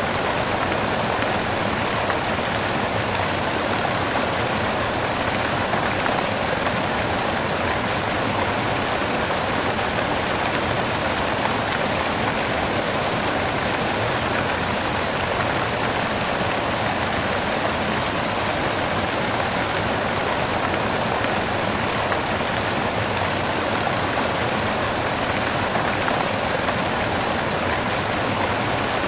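Waterfall rushing: a steady, unbroken roar of falling water spread evenly from low to high pitches.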